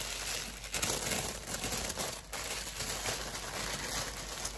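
Paper wrapping crinkling and rustling as hands unwrap an item, with irregular sharp crackles.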